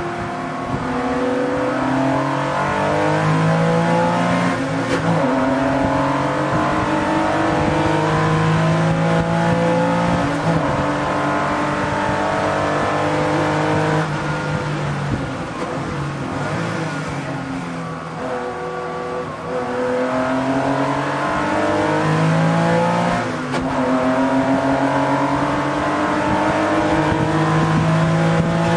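Race car engine heard from inside the cockpit under hard acceleration, its pitch climbing through the gears and dropping at each upshift. Twice the revs fall away for braking and downshifts into a corner, then climb again.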